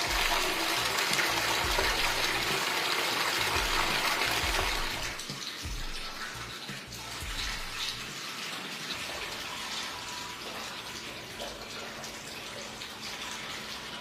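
Water running hard, starting suddenly, then easing to a steadier, quieter flow about five seconds in.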